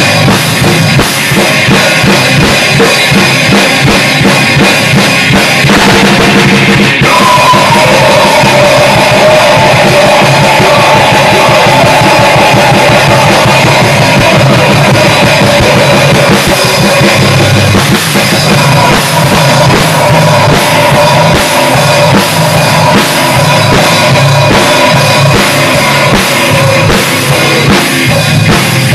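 Heavy rock band track: dense drum kit with guitar. From about seven seconds in, a wavering held melody line runs over it for most of the rest.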